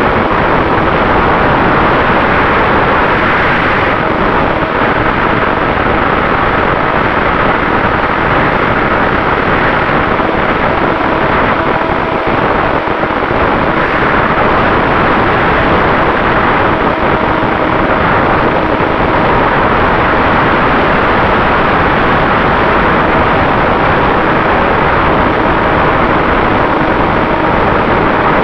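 Steady rush of wind and propeller noise on the onboard camera of a HobbyZone SuperCub RC plane in flight, with a faint steady whine from its Turnigy XP 3536 brushless electric motor.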